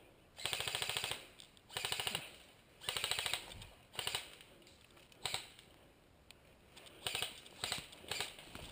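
Airsoft electric gun firing full-auto: three rapid bursts of about half a second each in the first few seconds, then single shots and short bursts.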